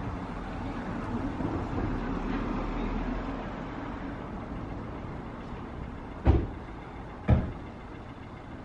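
Street traffic rumbling past, loudest over the first few seconds and then easing off. Near the end come two sharp thumps, about a second apart.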